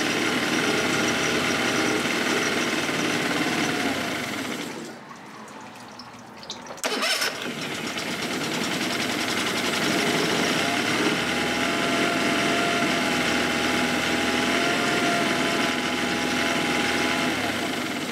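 Honda 15 hp four-stroke outboard running on a test tank with no propeller fitted, shifted into forward and reverse. Its sound drops away about four to five seconds in, comes back sharply about seven seconds in, then runs steadily.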